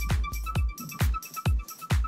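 Background electronic dance music with a steady kick-drum beat, about two beats a second, and high synth notes.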